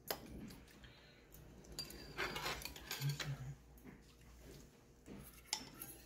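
Metal spoon and chopsticks clinking and scraping against a ceramic soup bowl. There is a sharp clink right at the start and another about five and a half seconds in, with a short scrape in between.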